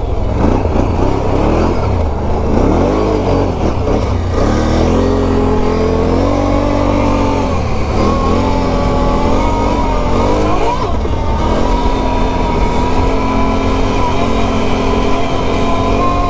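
Can-Am Renegade 1000 ATV's V-twin engine running under throttle on a dirt trail. Its pitch wavers at first, climbs from about four seconds in, and then holds fairly steady as the quad picks up speed.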